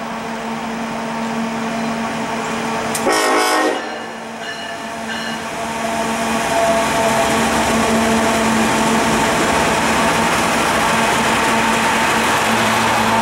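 Diesel freight locomotives, led by a GE ES44AC, approaching and passing close by. About three seconds in the lead unit's horn gives one short blast. From about halfway the engines and the wheels on the rails grow louder and stay loud as the locomotives and container cars go by.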